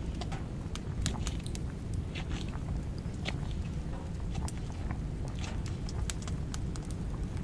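Small knife slicing fresh green chili peppers on a wooden cutting board: irregular crisp chops, each cut ending in a click on the board, over a steady low rumble.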